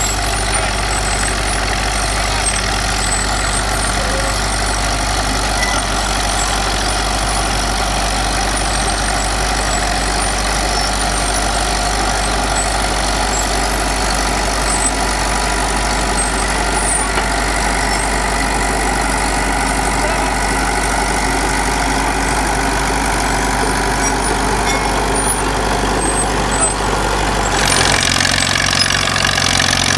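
Vintage crawler tractor engine running steadily under load as it pulls a plow through a field. Near the end the sound changes abruptly to a second crawler tractor's engine, with a low pulsing beat.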